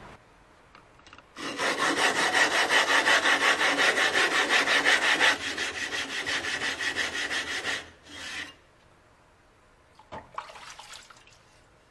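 Etched glass lapping plate rubbed back and forth over a wet Naniwa 600 whetstone with coarse lapping powder, flattening the used stone's face. A gritty scraping comes in quick strokes, about five a second, for some six seconds, a little softer near its end, then stops; a few small knocks follow.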